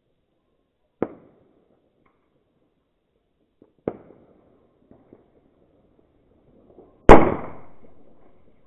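Firecrackers going off: two sharp bangs about three seconds apart, a few faint pops, then a much louder bang about seven seconds in that echoes and dies away over more than a second.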